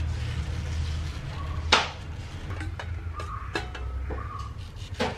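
Kitchen knife slicing a peeled ripe mango over a steel plate: a few sharp clinks as the blade or dropped pieces hit the plate, the loudest about a third of the way in and another near the end, over a steady low hum.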